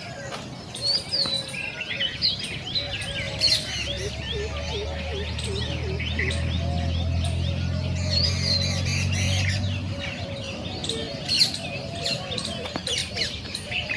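Many small birds chirping and twittering at once, over a row of repeated lower calls. A low steady hum comes in a few seconds in and fades out after several seconds.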